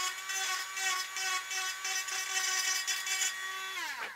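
Dremel rotary tool with an end mill bit running at speed, deburring a hole in a plastic case: a steady high whine with a rough, pulsing scraping over it. Near the end it is switched off and the whine slides down in pitch as the tool spins down to a stop.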